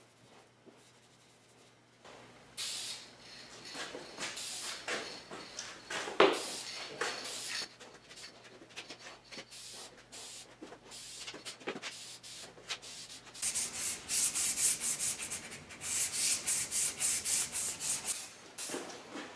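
Hand rubbing and wiping strokes of cloth on a wooden lathe-tool handle, irregular at first with one sharp knock about six seconds in, then a faster, denser run of scratchy rubbing strokes near the end.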